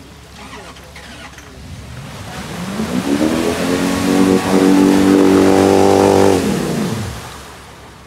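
Off-road 4x4's engine revving up, held at high revs for about three seconds, then dropping back off.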